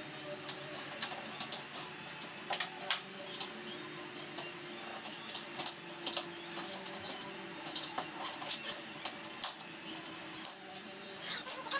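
Irregular small clicks, ticks and faint squeaks of a VW bus windshield's rubber seal being worked loose from the glass and frame by gloved hands.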